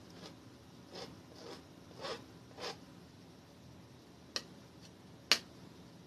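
Palette knife scraping oil paint across canvas in short strokes, five in the first three seconds, then two sharp taps near the end, the second the loudest.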